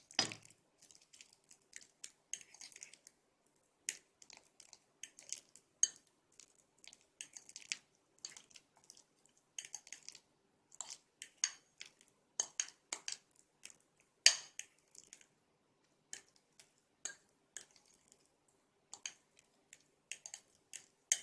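A metal fork mashing a ripe banana in a dish: irregular taps and clicks of the fork against the dish, with one sharper click about two-thirds of the way through.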